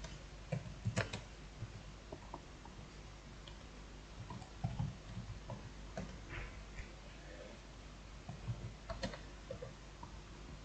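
Computer keyboard being typed on slowly: scattered single keystroke clicks at uneven intervals.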